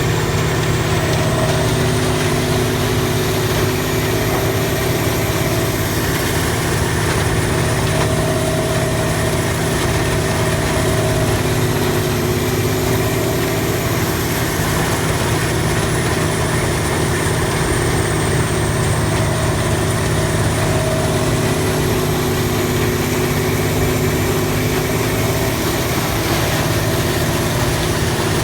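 Morbark 4600XL wood grinder's diesel engine running steadily with no load, with a faint high whine that slowly rises and falls in pitch.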